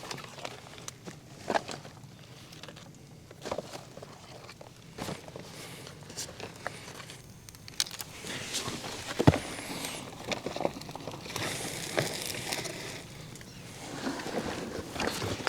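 Rustling and scattered snapping of wet brush being handled, with footsteps, as irregular clicks and knocks rather than a steady sound.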